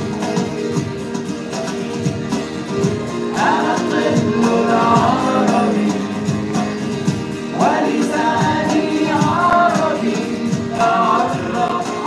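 Arabic children's song: music with steady held notes underneath and a singing voice that comes in three phrases, about every four seconds.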